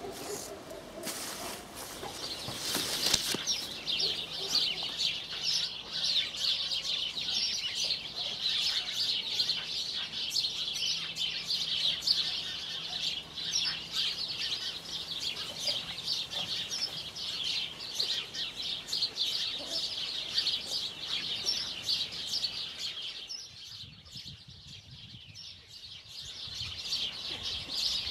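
Small birds chirping and chattering rapidly and continuously, breaking off for a few seconds near the end before starting again.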